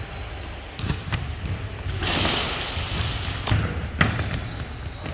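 Basketball dribbled on a wooden gym floor: separate sharp bounces, and a brief louder scuffing noise about two seconds in.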